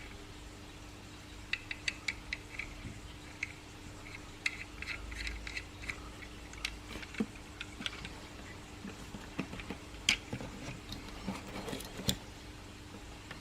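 Small moving parts of a 1:2 scale M4A1/AR-15 miniature replica rifle being handled: scattered light clicks and clacks, a sharper click near the end, over a faint steady hum.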